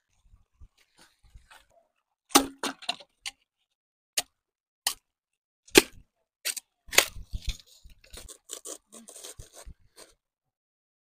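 Bolo knife cutting bamboo: sharp knocks at uneven spacing, then a busier stretch of quicker, smaller scraping cuts.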